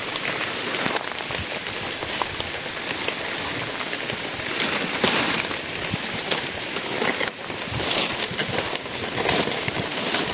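Steady rain falling on leaves and undergrowth, a continuous hiss with a few short crackles scattered through it.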